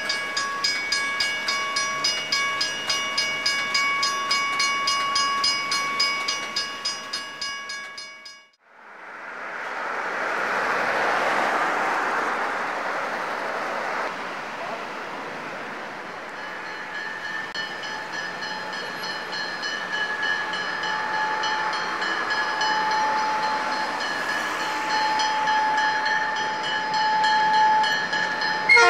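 Grade-crossing bell ringing in a fast even rhythm, about two and a half strokes a second, as the rear of a passenger train clears the crossing. After a sudden cut there is the rush of passing road traffic, then a train horn sounding steadily for many seconds as the Wine Train's FPA-4 diesel locomotives approach.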